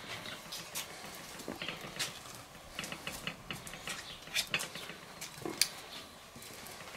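Metal ice cream scoop working: rinsed in a cup of water, then scraping through vanilla ice cream in a plastic tub and releasing the balls onto a plate, giving a string of short clicks and scrapes. The loudest click comes about five and a half seconds in.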